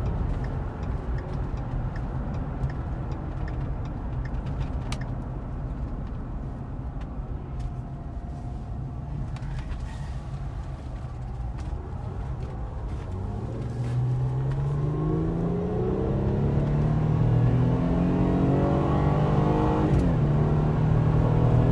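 2012 Ford Escape Limited heard from inside the cabin: a steady road and tyre rumble at first, then about 13 seconds in the engine pulls under hard acceleration, its note rising and getting louder. Near the end the note drops sharply for a moment as the automatic transmission shifts up, then climbs again.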